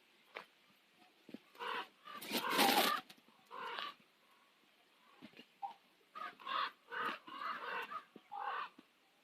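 Common ravens croaking: harsh, rasping calls, the loudest about two to three seconds in, then a quick string of calls in the second half.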